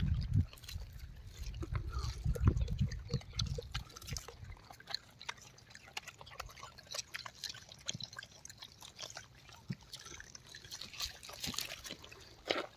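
Gray langurs chewing juicy fruit at close range: scattered wet clicks and smacks of eating. A low rumble fades out about four seconds in.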